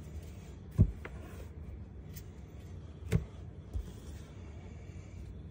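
Stacks of trading cards set down and tapped on a tabletop: a sharp knock about a second in, another a little after three seconds and a lighter one soon after, over a steady low hum.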